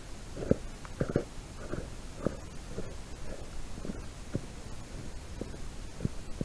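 Boot footsteps crunching on snow-covered ice, about two a second, growing fainter as the walker moves away. Under them runs a steady low rumble of wind on the microphone.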